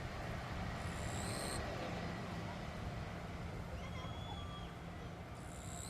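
Jet engines of a Boeing 787-8 heard as a low, steady rumble, with two short high buzzes, one about a second in and one near the end.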